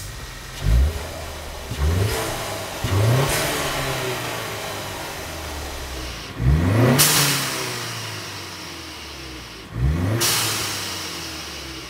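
Ford Mustang EcoBoost's turbocharged 2.3-litre inline-four, parked, revved with about five throttle blips, each rising in pitch. The two biggest revs, about halfway and near the end, are each cut by a sharp, fading hiss: the "psh" of boost venting to the air through a C&L bypass valve adapter as the throttle is released.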